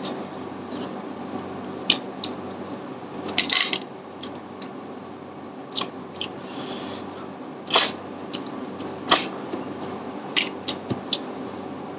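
Close-up eating sounds: chewing a hand-fed mouthful of rice and snail curry, with scattered sharp mouth clicks and smacks, the loudest two coming about two-thirds of the way through, over a steady low hum.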